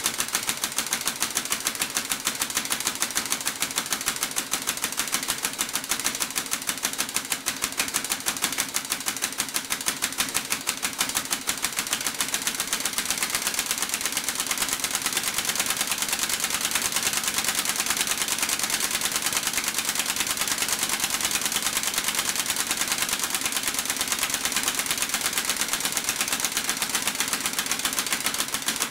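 Old two-stroke chainsaw engine converted to run on compressed air, running steadily with a rapid, even chatter of exhaust puffs and a hiss of escaping air.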